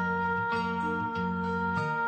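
Background music: an instrumental track with plucked-string melody over a steady repeating bass line.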